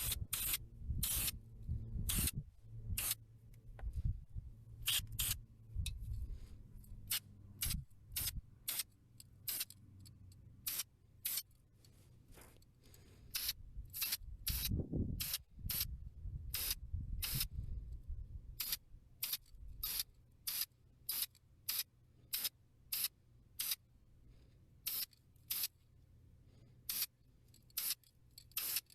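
Aerosol spray paint can giving many short spritzes, about one or two a second, as paint chips are touched up freehand in quick light bursts. Duller handling knocks and rustles come in the first several seconds and again about halfway through.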